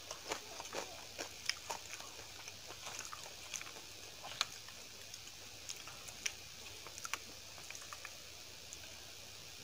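Close-up eating sounds of a person eating a thali by hand: chewing, with scattered crisp clicks and crackles, the sharpest about four and a half seconds in.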